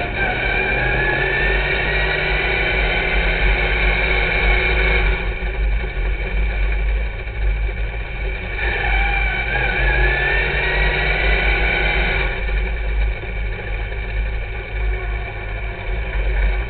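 Sportmod dirt-track race car's engine heard from inside the car under race load: its pitch climbs steadily down a straight, then drops abruptly as the throttle comes off for the turn. This happens twice, the drops coming about five seconds in and again about twelve seconds in.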